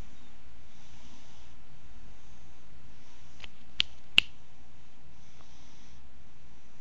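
Domestic cat snoring softly, a faint airy breath every second or two. Two sharp clicks come close together about four seconds in.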